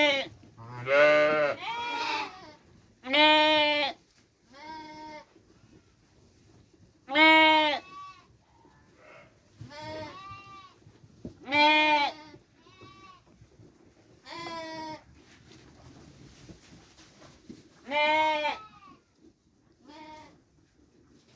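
Sheep bleating, about a dozen quavering calls from several animals, some loud and close, others fainter, with short pauses between them.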